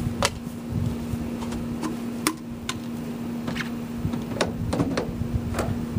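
Scattered sharp clicks and light knocks of hard plastic PVC pipe fittings being handled and fitted together, over a steady low hum.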